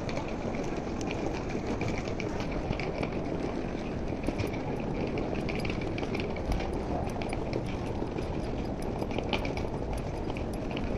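Busy airport terminal hall ambience: a steady hum of hall noise and distant voices, with frequent short ticks of footsteps on the hard stone floor.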